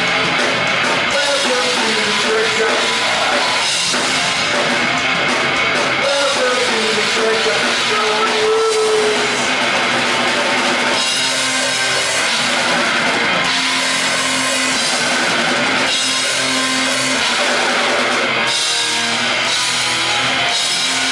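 Rock band playing live and loud: electric guitar over a driving drum kit.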